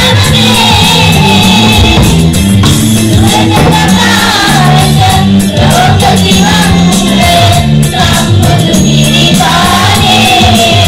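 A children's choir singing a Sinhala Buddhist devotional song (bakthi gee) through microphones over a loud accompaniment with a repeating low bass pattern.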